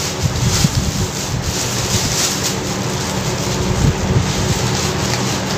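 Paper wrapping rustling and crinkling as it is pulled open to get at a paneer roll, over a steady background hum.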